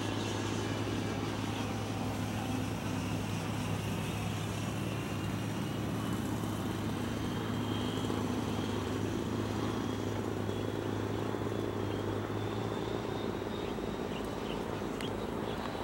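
Radio-controlled model F-14 jet flying past at a distance: a faint high whine that rises slightly, then fades as it flies away, over a steady low hum.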